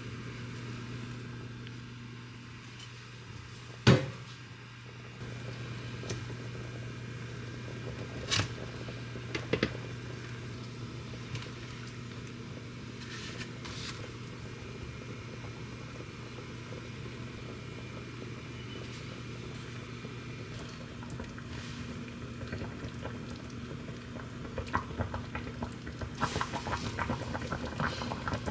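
Water with two whole chickens coming to the boil in a pan for chicken baeksuk, under a steady low hum. There are a few sharp knocks, the loudest about four seconds in, and a quick crackle of bubbling that builds over the last few seconds.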